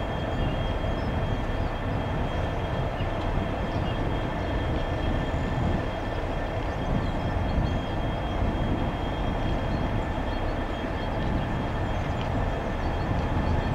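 Railway locomotives running in a yard: a steady engine hum with a few faint steady high tones, unchanging throughout.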